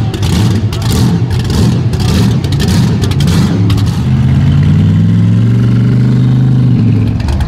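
Mud bog trucks' engines running hard under throttle: a rough, crackling engine sound for the first few seconds, then from about four seconds in a high-revving engine holding a steady, slowly rising pitch that drops near the end.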